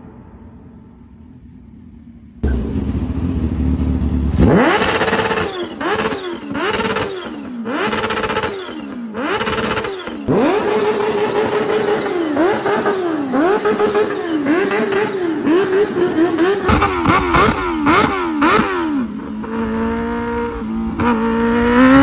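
Kawasaki Ninja H2R's supercharged inline-four engine revved again and again in quick blips, each a rise and fall in pitch lasting under a second, after a low rumble starting about two seconds in. Near the end it pulls up in a steadier rising pitch.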